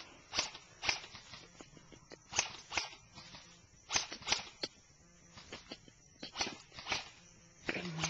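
Footsteps crunching on a leafy dirt forest floor, irregular steps about two a second.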